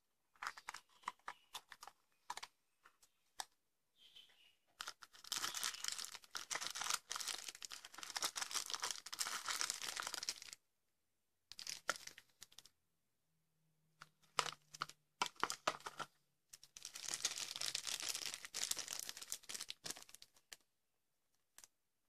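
Packaging handled by hand: a clear hard plastic case clicking and tapping, and two long stretches of crinkling plastic and paper wrapping, with scattered clicks between them.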